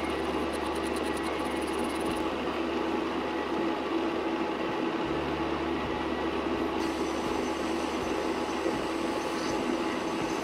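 A workshop machine's motor running steadily: an even mechanical drone with a steady hum. Its tone shifts abruptly about two seconds in and again about seven seconds in.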